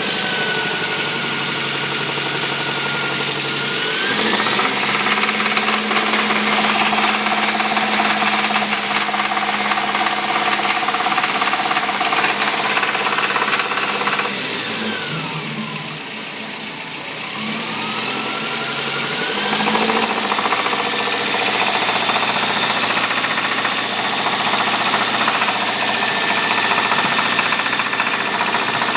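Toyota 22R-E 2.4-litre four-cylinder engine running with a knock whose cause the owner does not know. It speeds up about four seconds in, holds, drops back toward idle about halfway through, then speeds up again.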